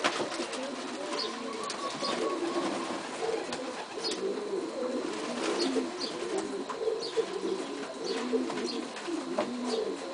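A flock of domestic pigeons cooing over one another without pause. Short, sharp splashes and wing flaps are scattered throughout as the birds bathe in a shallow tub of water.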